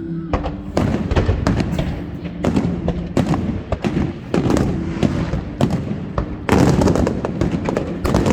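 Aerial fireworks bursting in quick succession, a rapid run of bangs and booms. About six and a half seconds in, the bursts thicken into a dense crackle.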